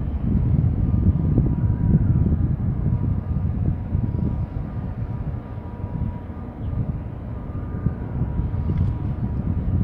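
Low, uneven rumble of the container ship EVER COPE's engine as it passes close by, mixed with wind buffeting the microphone, with a faint steady high tone over it.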